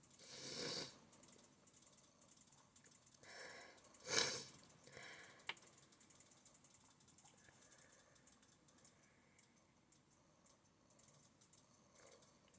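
A person sneezing: a breathy sniff, then a short voiced intake of breath and a sharp, loud sneeze about four seconds in, followed by another breath. Faint clicking of a computer keyboard being typed on runs between.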